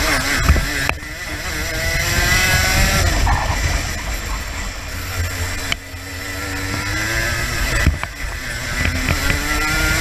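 Racing kart's two-stroke engine at racing speed, its pitch climbing under throttle and dropping off sharply about a second in and again near the middle as the driver lifts for corners, then climbing again.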